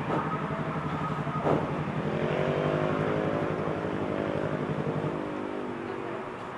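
Sport motorcycle engines idling with a steady pulsing beat; between about two and five seconds in, one engine's note rises a little and falls back.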